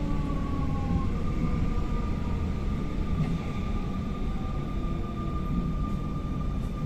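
Siemens Desiro ML class 460 electric multiple unit running at speed, heard from inside the car through an open window: a steady wheel-and-track rumble with a thin, steady high electric whine over it, and a second whine falling in pitch that fades out about a second in.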